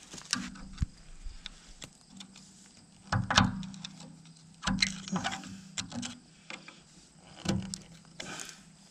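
Irregular metal clanks and clinks, several with a brief low ring: hand tools and freshly loosened bolts being handled at a machine bucket whose teeth are being unbolted. The loudest knocks come about three, five and seven and a half seconds in.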